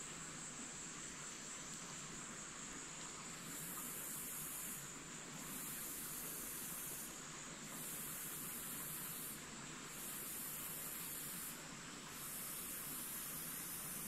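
Insects calling: a very high-pitched buzzing trill that sets in about three seconds in and then repeats in long pulses with short breaks, roughly every two seconds, over a steady soft hiss.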